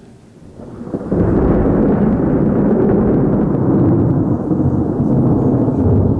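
Thunder: a rumble that swells up about a second in and then rolls on, loud and deep, without letting up.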